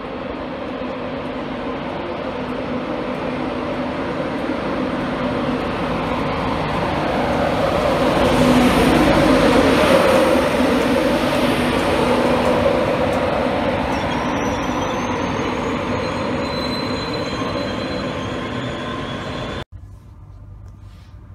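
LNER Class 91-hauled InterCity 225 train running into the platform, growing louder as it passes close by, with high wheel and brake squeals as it slows. The sound cuts suddenly to a quieter steady hum near the end.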